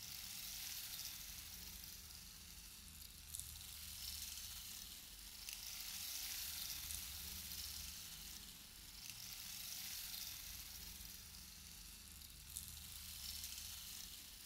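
A faint, steady hiss, like sizzling, slowly swelling and easing, with a low hum underneath and a couple of soft clicks.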